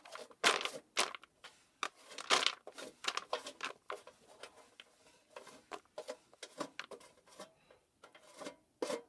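Pulped coffee beans raked by hand off the metal chute of a hand-cranked pulping machine, rattling and clicking as they drop into a plastic bowl. The rattles come in irregular handfuls, thickest in the first few seconds and sparser later.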